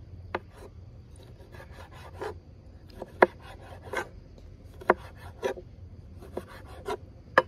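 Kitchen knife slicing a red pepper on a wooden cutting board: irregular sharp knocks of the blade meeting the board, about one every half-second to second, the loudest about three seconds in, with faint rasping cuts through the flesh between them.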